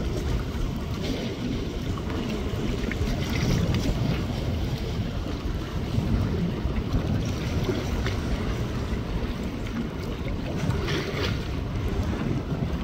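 Wind buffeting the microphone, with waves and water noise beneath it.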